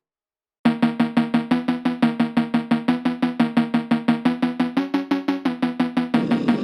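Background music: after a brief silence, a fast, even run of short repeated pitched notes begins. The pitch shifts briefly about five seconds in.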